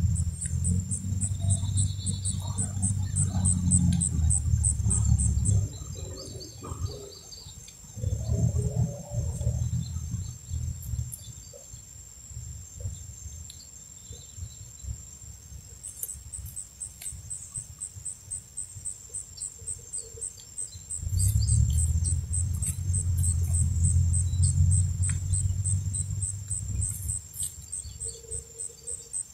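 Insects chirping in an even, rapid high-pitched pulse, about three to four chirps a second, over a steady high whine. Three bouts of loud low rumble come and go, at the start, around eight seconds in and from about twenty-one seconds in.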